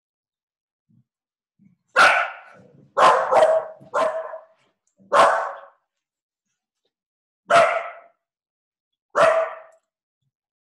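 A dog barking: seven sharp, loud barks, one pair coming close together, spread over about eight seconds.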